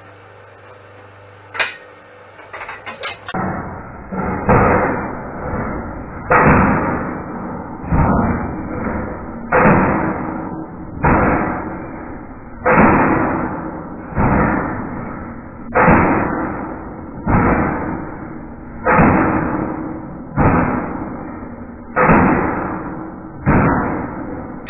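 Power hammer pounding a red-hot steel rod in repeated bursts of rapid blows, a burst about every second and a half, beginning about three seconds in after a few light clicks. The hammer is drawing the bar out rather than forming a point.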